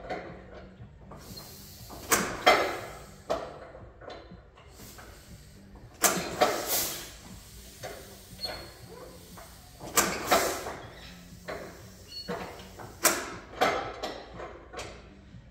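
Metallic clanks and rattles in short groups every few seconds, over a steady low hum, as men work by hand on the crawler tractor's engine; the engine is not running.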